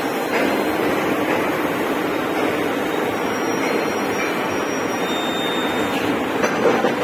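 Steady machinery noise of a running servo-driven coil-processing line: an even hum with faint thin high tones, and a few light knocks near the end.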